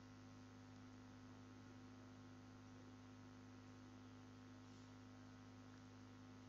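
Near silence with a faint, steady electrical hum from the recording chain.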